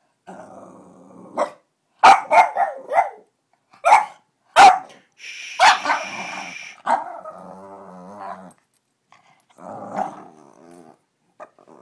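Boston terrier grumbling, growling and barking: a low grumble, then a quick run of four short, sharp barks about two seconds in and two more single barks, a drawn-out higher cry near the middle, and rumbling growls after it.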